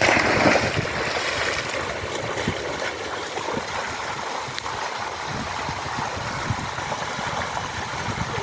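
Sea water splashing and churning as swimmers stroke through it, opening with a loud splash and then continuing steadily.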